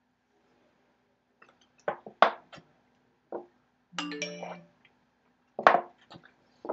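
Sharp clinks and knocks of a small drinking glass and a plastic water bottle being handled while someone drinks from them, with a brief ringing tone of several pitches about four seconds in.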